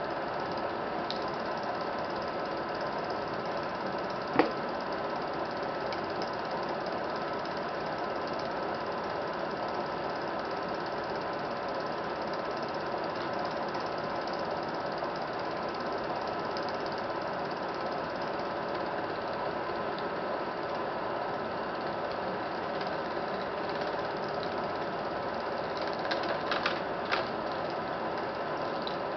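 Film projector running, its motor and film-advance mechanism making a steady mechanical noise, with one sharp click about four seconds in and a few lighter clicks near the end.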